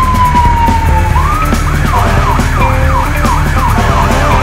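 Fire engine siren: a wail winding slowly down, then switching about a second in to a fast yelp of about three up-and-down sweeps a second, over a steady low rumble.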